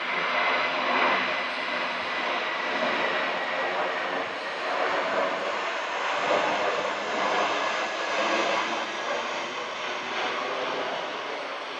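Twin-engine Airbus A319 jet airliner passing close overhead on final approach with its landing gear down: a loud, steady jet-engine roar, with a high whine that fades after about two seconds, easing slightly near the end.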